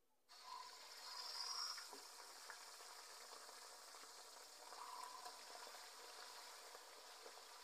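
Faint sizzling as boiled, mashed green mangoes go into hot mustard oil with panch phoron in a karahi, a little louder about a second in.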